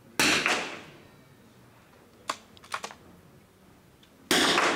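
.22 rimfire smallbore rifle shots in an echoing hall: one sharp crack just after the start and another near the end, each ringing out for about half a second, with a few faint clicks in between.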